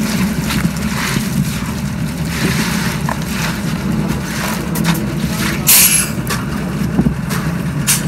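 Transit mixer truck's diesel engine running steadily as its rotating drum discharges wet concrete down the chute, with gritty sliding and scraping of the concrete. A brief loud noise a little past halfway.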